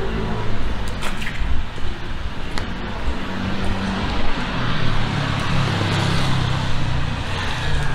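Street traffic: a motor vehicle's low engine hum grows louder from about halfway through, over a steady hiss.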